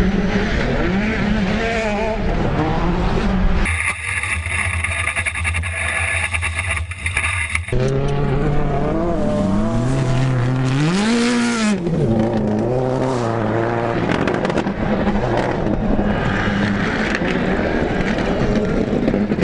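Rallycross race car engines at racing speed, revving up and falling back through gear changes, with a little tire scrabble on the loose surface. The sound changes abruptly a few times, with a steadier engine drone for a few seconds before one sharp rev up and down.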